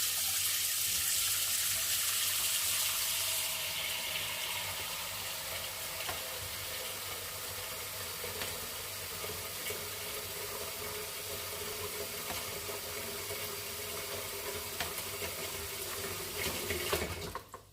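Water running from a tap into a container, a steady rush that eases a little after about three and a half seconds, then stops suddenly as the tap is shut off near the end.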